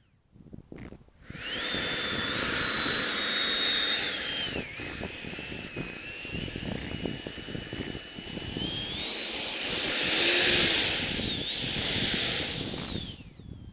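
Big RC model jet's engine whining as the plane taxis, a high whistle over a rushing noise that rises in pitch as the throttle goes up and drops back, swinging up and down twice near the loudest point about ten seconds in. The sound starts suddenly about a second in and cuts off just before the end.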